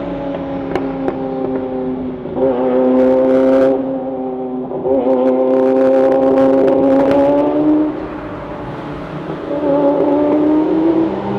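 Ferrari F40 LM's twin-turbo V8 running at a fairly even pitch. The exhaust note steps louder twice as the throttle opens, drops back about eight seconds in, and rises again near the end, with short crackly ticks over the louder stretches.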